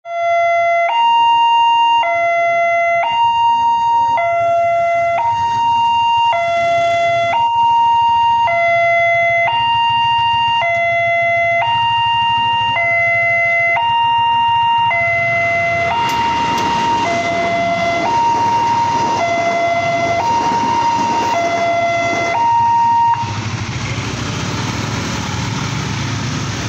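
Railway level-crossing alarm sounding an electronic two-tone ding-dong, a lower and a higher tone alternating about once a second. About halfway through, the rush and rumble of a passing train builds up under it. The alarm cuts off suddenly near the end, and a steady rush of train and engine noise goes on.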